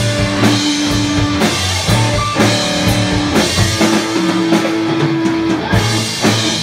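Live rock band playing without vocals: electric guitars sustain long held notes over a drum kit keeping a steady beat.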